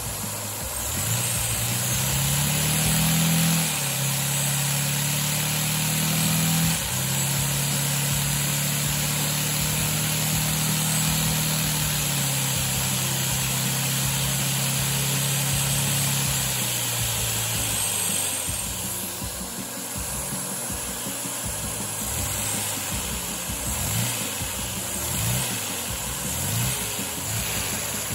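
Micro LEGO inline-four vacuum engine running on vacuum-cleaner suction: a steady rushing hiss with the engine's fast buzzing clatter over it. The buzz climbs as it speeds up, steps up and down as the slide throttle is moved, and dies away about two-thirds through, followed by repeated short rising surges.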